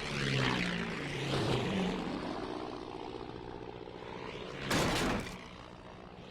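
Steady engine drone, with a brief pitched cry in the first two seconds and a sudden noisy burst about five seconds in.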